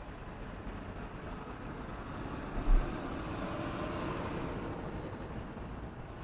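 Street traffic heard from an apartment, with one vehicle passing by, its sound swelling and fading over a few seconds. A brief low thump about two and a half seconds in is the loudest moment.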